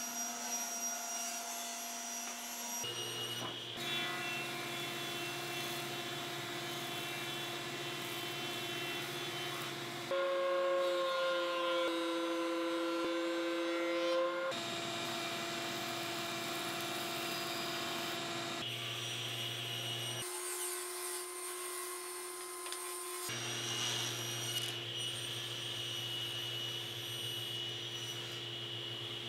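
Woodworking machines running in a series of short edited clips: a table saw cutting frame stock and a benchtop thickness planer taking a board. Each is a steady motor hum that changes abruptly at the cuts, loudest for a few seconds in the middle.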